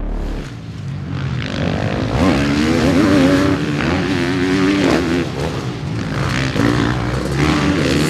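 Suzuki motocross bike's single-cylinder four-stroke engine revving hard under throttle, its pitch climbing and dropping again and again as it is ridden.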